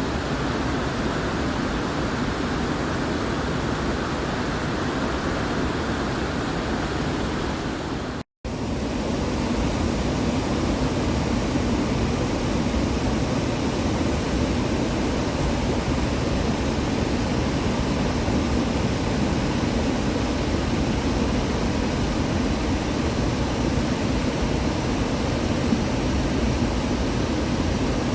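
Waterfall rushing in a steady, even roar, broken by a split-second dropout about eight seconds in.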